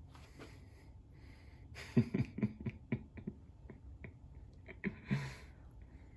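A run of soft clicks and small knocks, then one short breathy puff about five seconds in: a birthday candle being blown out.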